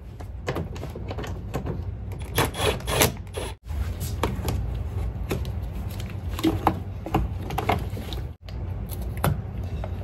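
Hand-tool work in a car's engine bay: scattered clicks and light metal rattles of a socket tool on small bolts and parts, over a steady low hum. The sound drops out briefly twice.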